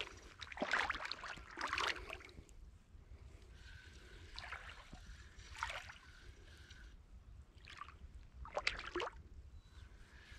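Shallow water sloshing and splashing around a wading angler's legs, in about six short irregular bursts.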